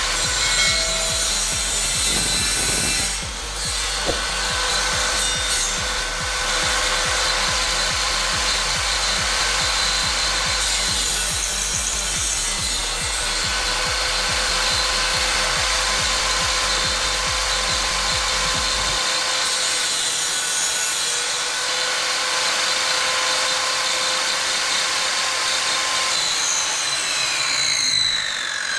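Maktec circular saw mounted under a homemade table saw top, running steadily with a constant whine while cutting small pieces of wood. Near the end several falling whines sweep down in pitch.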